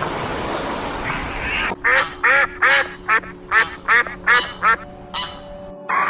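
A rough, noisy sound for the first couple of seconds, then an animal giving about eight short, nasal, quack-like calls in quick succession that grow fainter toward the end.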